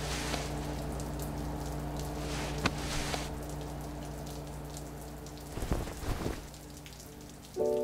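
Steady patter of falling water like rain, with a few sharp drips and a low steady hum underneath. A few musical notes come in right at the end.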